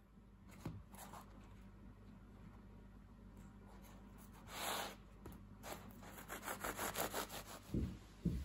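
A knife sawing through a crisp, flaky croissant on a wooden cutting board: scattered scraping strokes, a longer rasp around the middle, then a quicker run of about four or five strokes a second. Two low thumps just before the end.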